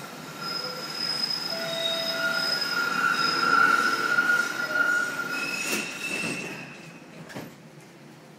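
Steel wheels of a new TTC Flexity Outlook streetcar squealing as it runs through the underground tunnel, heard from inside the car. Several steady high-pitched squeal tones sit over the rumble of the running gear. They swell to their loudest around the middle, then fade away over the last couple of seconds.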